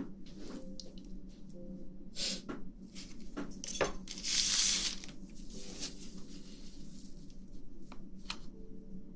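Close-miked ASMR handling sounds: scattered rustles, crackles and taps, with a short hissing burst about four seconds in.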